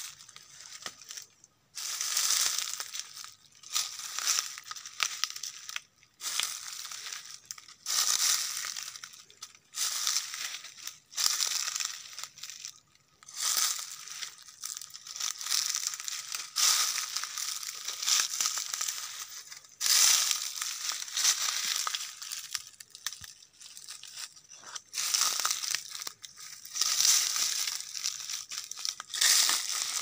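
Footsteps crunching through dry fallen leaves and twigs at a steady walking pace, about a step a second, with brush rustling as it is pushed aside.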